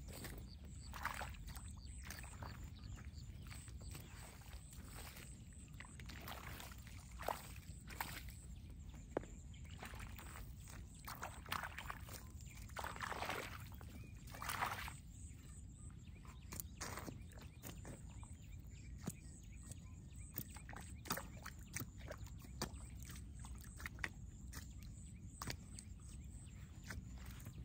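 Faint splashing and sloshing of water, with scattered light knocks and clicks over a low steady rumble; the splashing is strongest in a few short bursts about halfway through.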